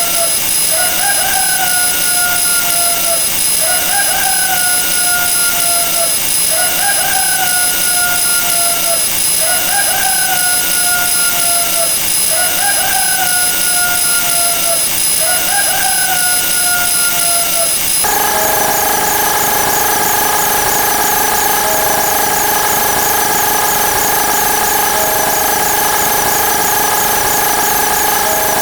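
A dense layer of sound effects playing at once: many steady tones under a repeating falling chirp about every one and a half seconds. About two thirds of the way through the mix switches suddenly to a different set of steady tones with quick high chirps.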